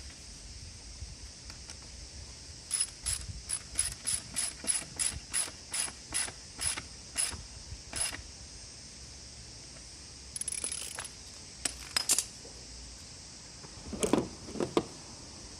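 Ratchet wrench clicking as it is turned: a run of about fifteen clicks that slow from about three a second to about one a second, then a few more clicks and a couple of duller knocks near the end.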